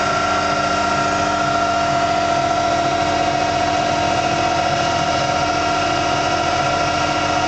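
Adept CIM Centre CNC lathe running: spindle turning the workpiece while the tool cuts a profile, giving a steady machine whine made of a few constant pitches.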